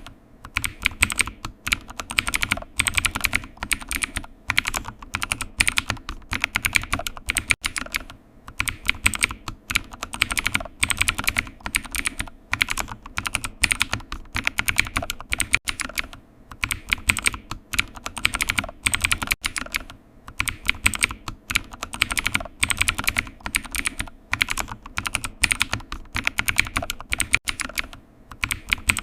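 Computer keyboard typing: a continuous run of quick key clicks at an uneven pace, with short pauses between bursts.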